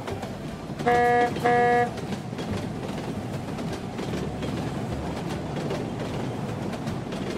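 A train horn sounds two short toots about a second in. A steady rattling rumble follows as the toy train rolls past over the track.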